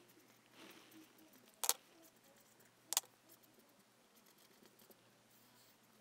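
Quiet room tone with two short, sharp clicks about a second and a quarter apart, a couple of seconds in.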